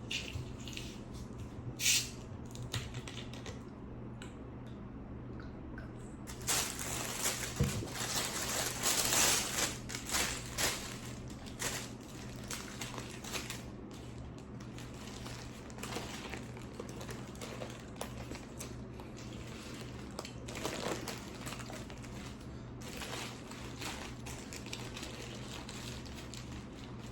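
Close-up food handling: paper crinkling and soft squishing and crunching sounds in uneven bursts, busiest from about six to eleven seconds in, over a faint steady hum.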